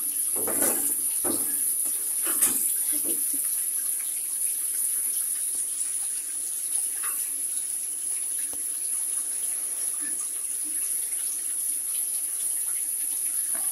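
Bathtub tap running steadily, with a few splashes in the first three seconds as a wet cat is handled in the water.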